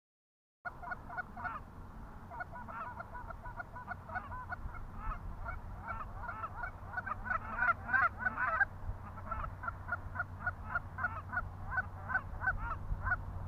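Canada goose honks, many in quick succession at about two or three a second, over a low steady hum. The honks start after a brief dead silence at the very beginning.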